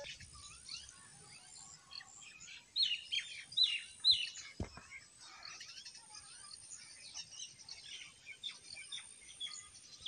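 Several small birds chirping and calling, with three louder down-slurred whistles about three to four seconds in. A single short knock comes about halfway through.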